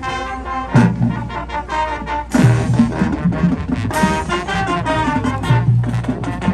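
High school marching band playing a brass-led tune over drums, with loud ensemble hits about a second, two and a half seconds and four seconds in.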